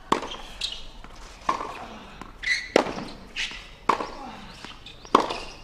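Tennis rally: racket strikes on the ball about every second and a bit, five loud hits in all, with softer knocks between.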